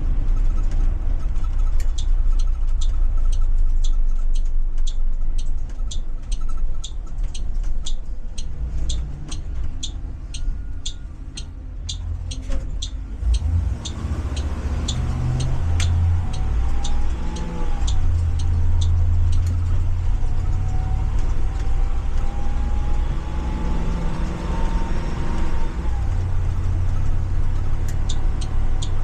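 Ford 7.3 V8 gas engine of a Blue Bird Vision school bus, heard from the driver's seat, easing off to near idle and then pulling away under load. A whine climbs and falls back twice as the 6-speed automatic upshifts, which the driver feels is holding gears a little too long. A turn-signal clicking at about two a second runs through much of it.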